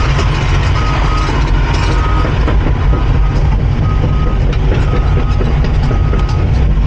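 Cat 349 excavator's diesel engine running under load as the machine tracks and turns, with the clatter of its steel tracks. A travel alarm beeps at one steady pitch about once a second.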